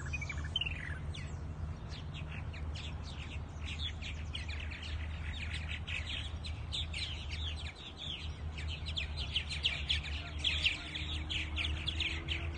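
A colony of purple martins chattering: a dense stream of quick chirps and warbles from many birds at once, growing busier in the second half.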